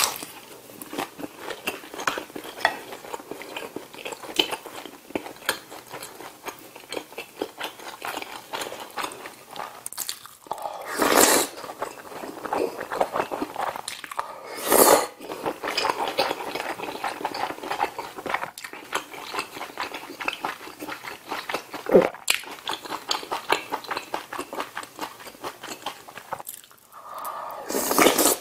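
Close-up eating sounds: wet chewing with many small clicks, broken three times by louder slurps of ramen noodles and pork kimchi stew broth, about 11 seconds in, about 15 seconds in, and near the end.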